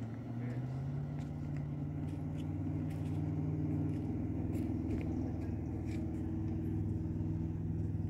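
An engine or motor running steadily with a low hum, its pitch shifting slightly early on and again about halfway through.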